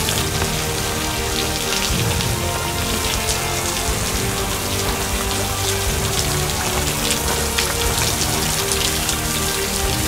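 Thin waterfall spattering down a wet rock face: a steady hiss of falling water dotted with many small drop splashes. Soft background music with held notes plays underneath.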